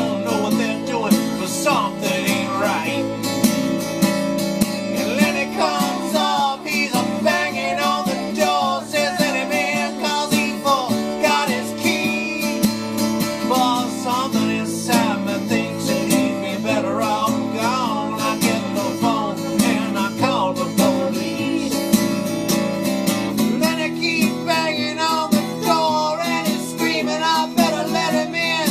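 Folk-rock song with a strummed acoustic guitar and a lead melody line that slides and wavers in pitch over the chords.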